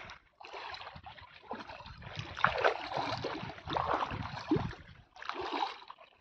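Shallow water sloshing and splashing around a person's legs as he wades step by step, with a few louder splashes.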